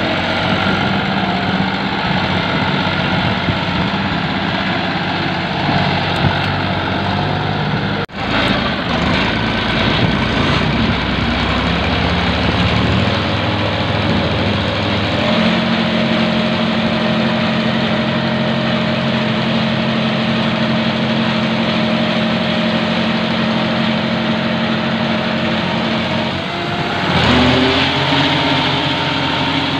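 Massey Ferguson 9500 Smart tractor's diesel engine running while the tractor pulls a clay mixer, with a sudden break about eight seconds in. Later it settles to a steady, even speed, and its note changes again near the end.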